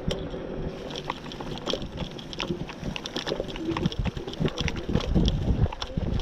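AKEZ LX10A 500 W electric scooter being ridden, with wind buffeting the microphone, a low rumble of tyres on the ground and many short rattles and knocks from the scooter over bumps.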